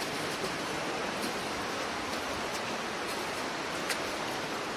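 Steady rush of falling water from a waterfall, an even hiss, with a few faint clicks, the sharpest about four seconds in.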